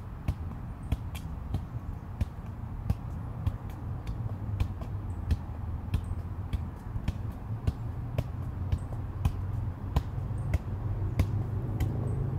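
Soccer ball being juggled with the feet: a steady run of sharp taps of foot on ball, about two a second.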